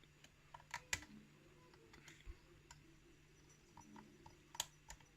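Faint, irregular clicks of a lock pick working the pins of a modified pin-tumbler challenge lock under tension, with the sharpest clicks about a second in and again near the end.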